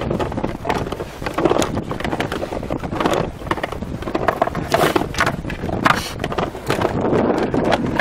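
Wind buffeting the microphone, a steady rumbling rush, with scattered knocks and rustles as a telescopic fishing rod is handled close by.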